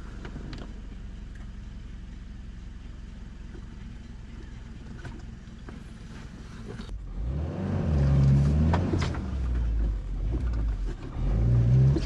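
Off-road 4x4 engine running steadily at low revs, then revving up much louder about seven seconds in, its pitch rising and falling in steps.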